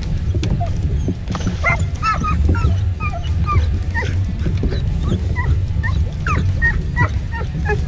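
Border Collie whining and yipping in short, high cries from about a second and a half in, excited by a bass being netted at the boat's side, over background music.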